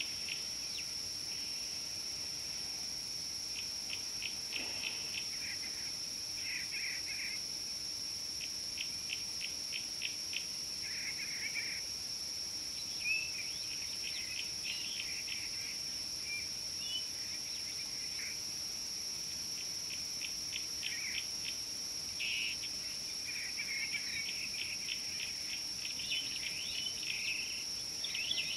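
Birds calling in short, fast trills and chirps, in repeated bouts, over a steady high-pitched insect drone.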